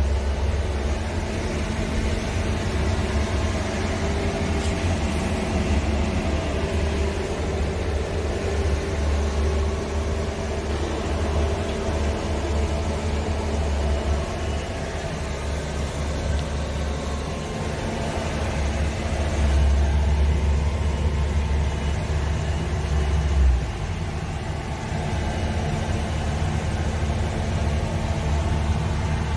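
Scania R truck's diesel engine idling, heard from inside the cab as a steady low hum. The rumble swells for a few seconds about two-thirds of the way through, then drops off suddenly.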